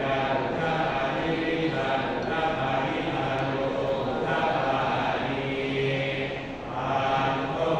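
Thai Buddhist monks chanting Pali in unison, a low steady chant with one short break for breath near the end. It is the chanting of a pluk sek rite, consecrating amulets.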